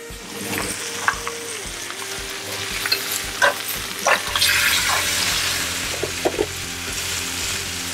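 Chicken thighs sizzling in a hot skillet, with sharp clicks of metal tongs against the pan as the pieces are turned. Faint background music plays underneath.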